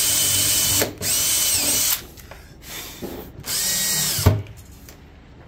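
Cordless drill driving screws through steel angle iron into a wooden tabletop, in three short runs of about a second each. The motor's whine climbs as each run starts and drops as it stops, and a sharp knock ends the last run.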